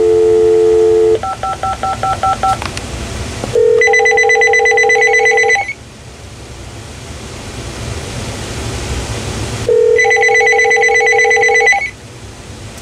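Telephone line dial tone, then a quick series of touch-tone dialing beeps. Then the Uniden 900 MHz cordless phone rings twice for an incoming call, each ring a two-second warbling trill over a steady lower tone, about four seconds apart.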